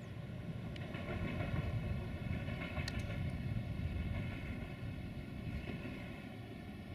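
VT614 diesel multiple unit running along the line: a low diesel rumble with steady higher tones over it, growing a little louder about a second in and easing off near the end.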